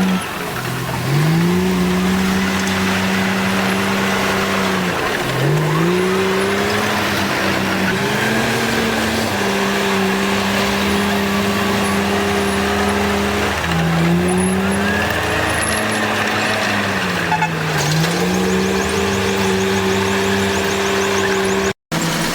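Komatsu bulldozer's diesel engine running under load, its pitch sagging and recovering several times as the blade pushes dirt. The sound cuts out for an instant near the end.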